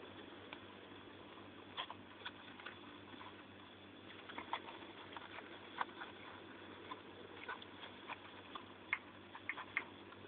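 Faint, irregular crackles and clicks of a mother hamster moving through hay and wood-shaving bedding, over a low steady hiss.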